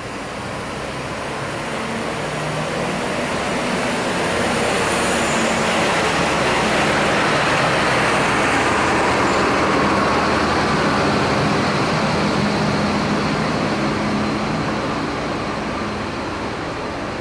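Tour bus driving past: engine and tyre noise swell to a peak about halfway through, then fade away.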